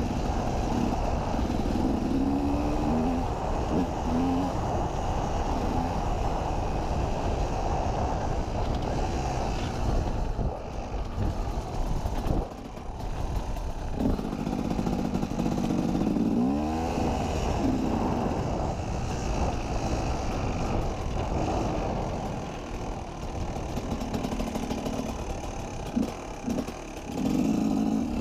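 KTM 250 EXC two-stroke enduro motorcycle engine being ridden off-road, its revs rising and falling with the throttle, with a sharp rev-up about two-thirds of the way through. A steady rushing noise and clatter from the ride run underneath.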